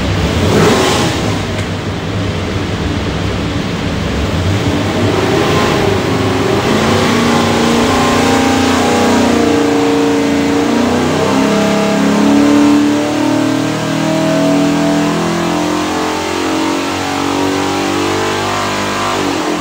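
347 cubic-inch small block Ford V8 stroker, with hydraulic roller cam and four-barrel carburettor, running under load on an engine dyno in a full-throttle pull, its pitch climbing steadily for several seconds as the revs rise. Loudest about two-thirds in, then easing slightly; the pull went as rated, with the engine making its expected torque and horsepower.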